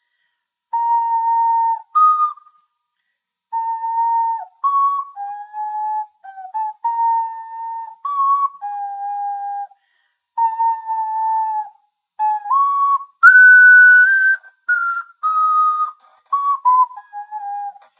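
Slow ocarina melody played on the Smule Ocarina phone app: single pure, steady notes, mostly long held ones with short higher notes between, phrases separated by brief gaps, climbing to the highest notes near the end.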